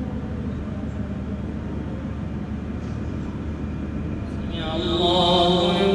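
Steady low hum with no voice while the congregation is bowed. About four and a half seconds in, the imam's voice begins a long chanted call, the signal for the worshippers to rise from bowing.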